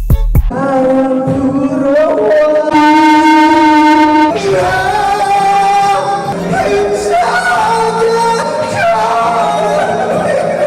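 Singing with music: a voice holding long notes that step to a new pitch every couple of seconds, after a few short thumps at the very start.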